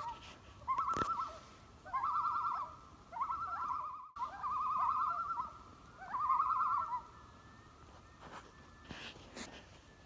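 Common loon tremolo: a run of about five quavering, laugh-like calls, each under a second long, over roughly seven seconds, then stopping.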